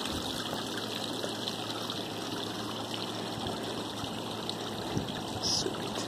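Water splashing steadily down a small rock waterfall into a garden pond, driven by a 12 V 500 GPH bilge pump. It runs at strong flow with plenty of splash.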